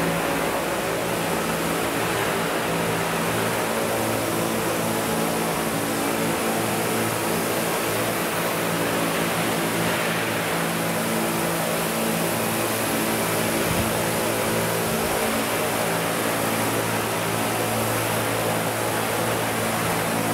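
Two large radio-controlled Vario CH-47 Chinook scale model helicopters flying, their tandem rotors and drives making a steady drone of several held tones under an even rushing hiss.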